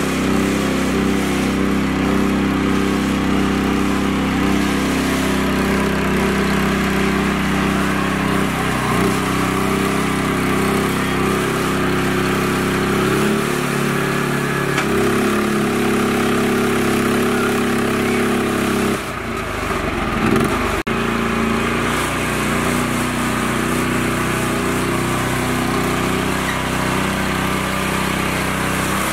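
Small engine of a mini tractor running steadily under load while the tractor and its trailer are stuck in mud. Its pitch shifts a little about halfway through, and the level drops briefly about two-thirds of the way in.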